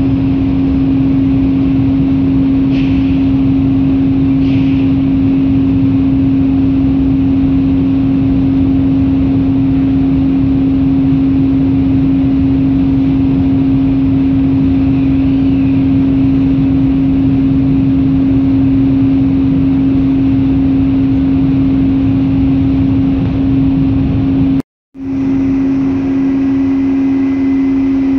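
Steady, loud hum of a container ship's machinery, with one strong low drone over a broad low rumble. It breaks off for a moment near the end, then carries on.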